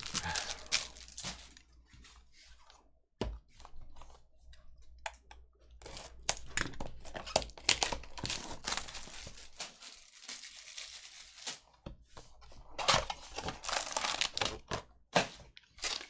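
Hands tearing open and crinkling the plastic wrapper of a Bowman Chrome trading-card pack: irregular spurts of crackling and rustling, with a single light knock about three seconds in.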